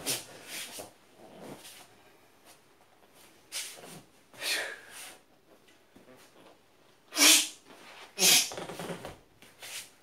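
A man's sharp, forceful breaths and hissing mouth sounds, made in time with qigong martial-arts movements. They come as a string of short, irregular bursts, and the two loudest are about seven and eight seconds in.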